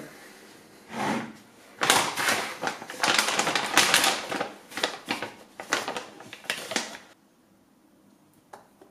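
Plastic pouch of protein powder crinkling and crackling as it is opened and handled and a measuring scoop is filled from it: a quick run of crackles and rustles starting about a second in and stopping near seven seconds.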